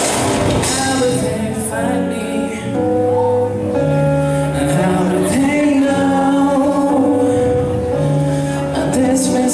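Live band playing with a singer: long held sung notes over electric guitars, keyboard and drum kit.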